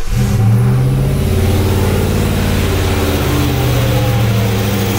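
1995 GMC Suburban's 5.7 L TBI V8 catching right at the start and then running steadily at idle, with the passenger-side valve cover off and the rocker arms exposed. No accessories are being driven.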